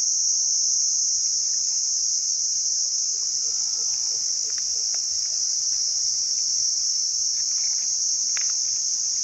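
Crickets chirping: a steady, unbroken high-pitched trill, made by the insects rubbing their wings together.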